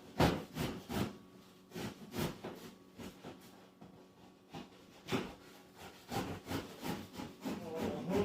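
A blade cutting through a cardboard shipping box: a string of short scraping strokes, with a lull in the middle.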